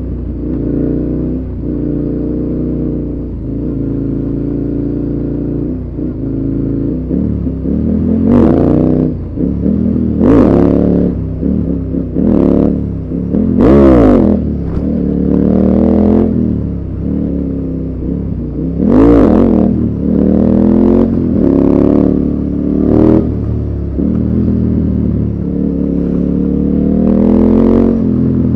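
Yamaha Tracer's inline three-cylinder engine heard up close while riding, its pitch rising and falling as the throttle is opened and closed again and again, with several short, louder surges.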